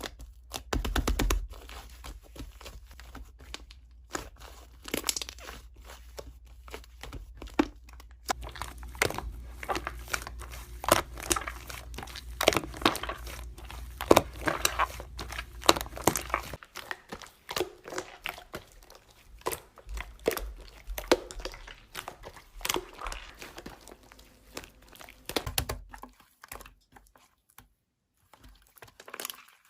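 Slime being squished and poked by hand, making irregular crinkly clicks and crackles, with a low hum underneath that stops about 26 seconds in.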